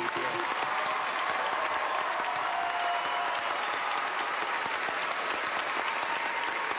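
Large audience applauding steadily: a standing ovation in a packed auditorium.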